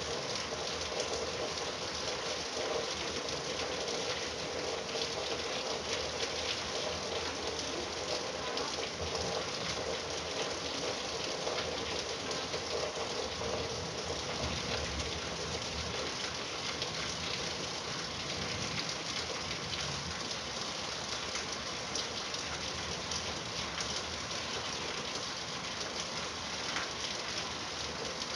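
Steady rain falling, with drops pattering on a surface.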